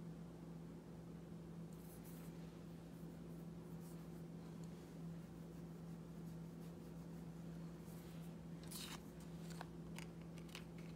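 Faint rustling and scraping of thin card and paper pieces being handled and slid on a cutting mat, with a few brief sharper scrapes and taps about nine seconds in, over a steady low hum.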